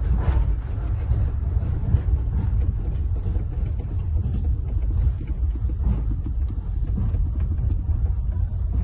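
Steady low rumble of a moving passenger train, with faint scattered clicks and rattles over it.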